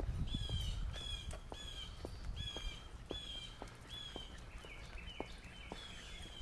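A songbird calling over and over, a short call repeated about twice a second, with faint regular clicks underneath.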